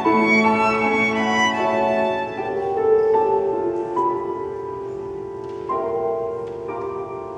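Live piano trio of violin, cello and grand piano playing a 20th-century Argentine chamber piece, long violin notes over piano chords. The music grows gradually softer through the second half.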